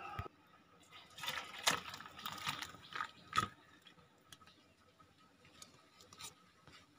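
Steel cooking pot being set down and handled: a dull thump at the start, then a few soft knocks and scrapes over the next couple of seconds.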